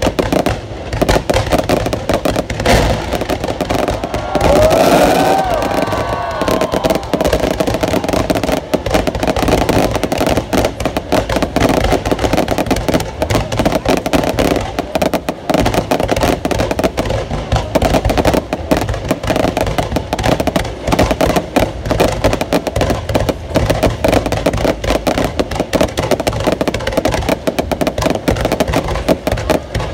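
New Year's fireworks going off continuously in rapid, dense crackling bangs, with a brief rising whistle about five seconds in.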